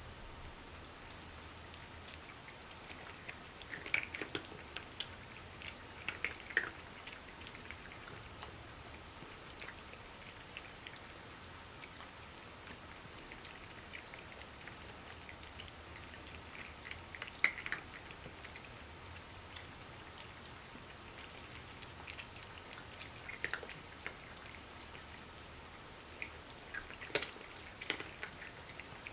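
Several cats eating from their dishes: faint clicks and chewing that come in short clusters every few seconds.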